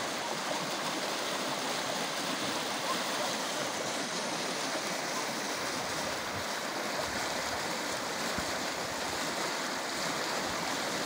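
Flash-flood water rushing down a narrow ditch, a steady, even rushing.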